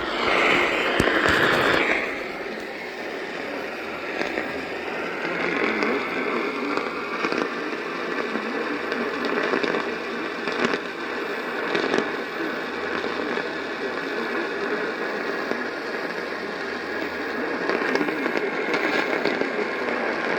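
AM radio reception full of hiss and crackling static, with sharp crackles scattered throughout and a louder stretch in the first two seconds.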